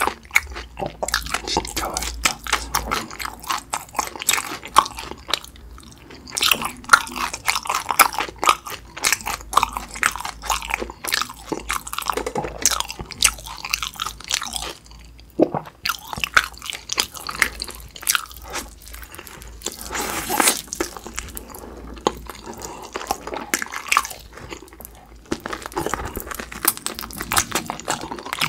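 Close-miked eating of a yangnyeom-sauced fried chicken drumstick: bites into the coated skin and meat, then steady chewing with many sharp crackles.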